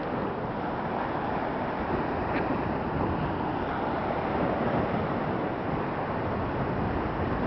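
Wind rumbling on the camera's microphone over the steady wash of small surf breaking on the beach.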